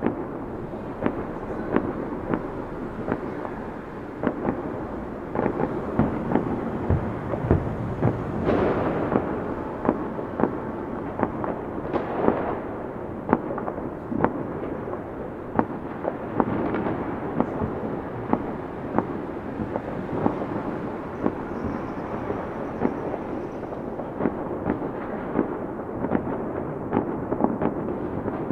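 A continuous fireworks display: many sharp bangs and crackles, several a second, over a steady rumble of distant bursts, with a few bigger swells of noise along the way.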